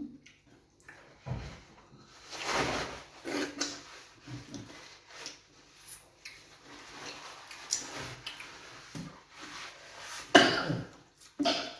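Close-miked eating sounds from fufu with groundnut soup: irregular mouth noises of chewing and smacking, with small clicks. The loudest burst comes about ten seconds in.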